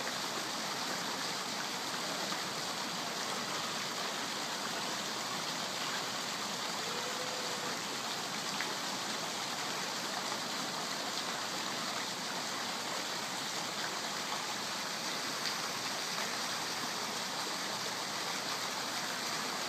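A small artificial waterfall falling from a rock face into a pool, making a steady, even rush of splashing water.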